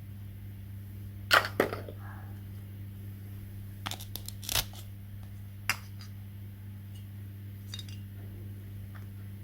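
A few sharp clicks and taps, loudest about a second and a half in and again around four and a half seconds, over a steady low hum.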